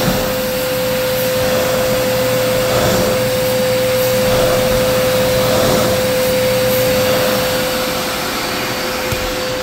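AlterG treadmill's air-bladder blower running steadily with a constant whine, pushing air while the inflated bag is being overpressured. The sound swells slightly in the middle and eases a little near the end.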